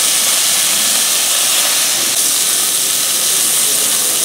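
Beef cubes sizzling steadily in hot olive oil as they are seared in a pot, turned over with tongs to brown the other side.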